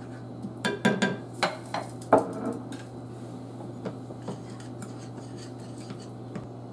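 A spoon stirring sauce in a stainless steel skillet and clattering against the pan, with a quick run of knocks in the first couple of seconds, then a few light taps.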